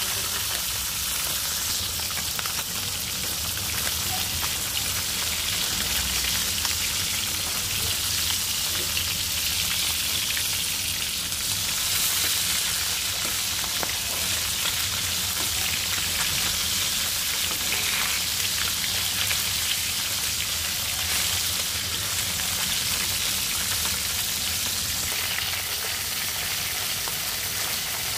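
Whole fish shallow-frying in hot oil in a wok: a steady sizzle with fine crackling and spitting.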